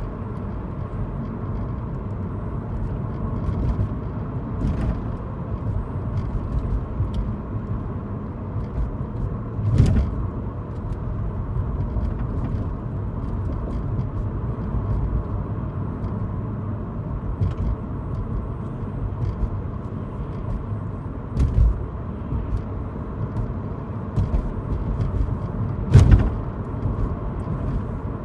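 Steady car road and engine noise heard from inside the cabin while driving, broken by short sharp rattles from somewhere at the rear of the car: one about ten seconds in, a smaller one past twenty seconds and the loudest near the end. The cause is unknown; the owner suspects the boot or the sunroof.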